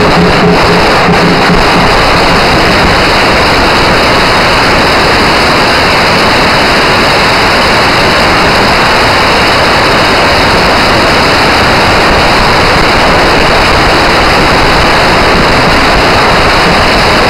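A long string of firecrackers going off in one continuous, dense, loud crackle without a break.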